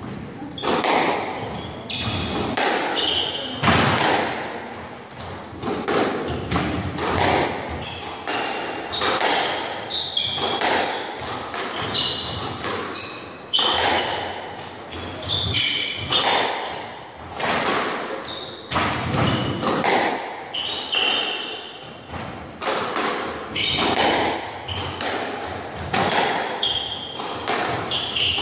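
Squash rally: the ball smacking off the rackets and the walls about once a second, with court shoes squeaking in short high chirps on the wooden floor.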